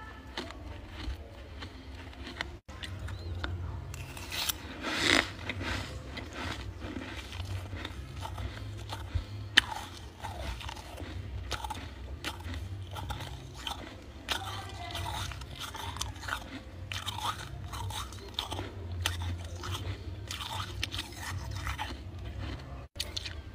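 Close-miked freezer frost being bitten and chewed: many crisp, irregular crunches, over a steady low hum.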